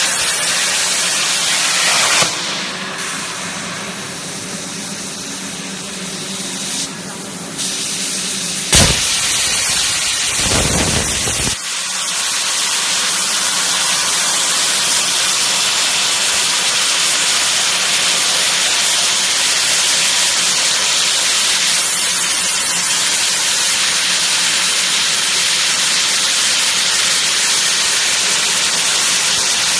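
CNC plasma torch cutting steel plate: the plasma arc and its gas jet give a steady, loud hiss. A sharp click comes about nine seconds in, followed by a brief low rumble.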